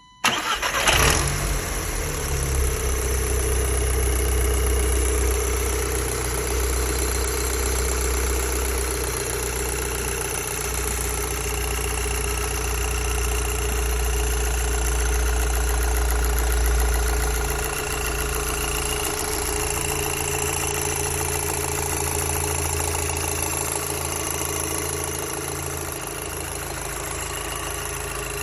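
Audi TTS (8J) 2.0 TFSI turbocharged four-cylinder starting, flaring briefly, then idling steadily, settling a little lower after about 18 seconds. The owner is recording it for a rattle (klappern) in the engine noise.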